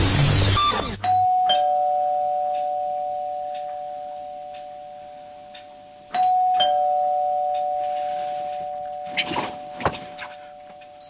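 Two-note ding-dong doorbell chime, a higher note then a lower one, each ringing out and slowly fading; it rings twice, about five seconds apart. A noisy swoosh cuts off about a second in, and rustling and bumps come near the end.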